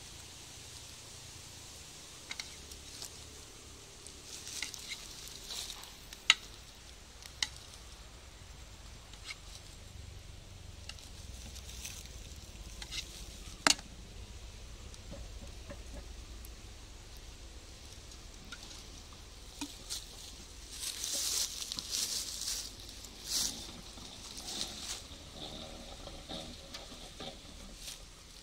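A knife scraping wax cappings off honeycomb frames into a steel pan, in short spells of scraping. A few sharp metallic clicks and knocks stand out, the loudest about six and fourteen seconds in.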